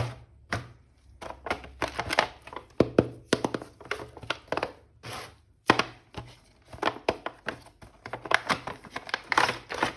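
Plastic action-figure packaging and parts being handled and opened: a run of irregular sharp clicks, taps and crinkles.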